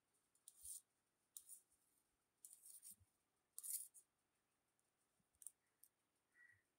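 Near silence, broken by a few faint, brief hissing rustles.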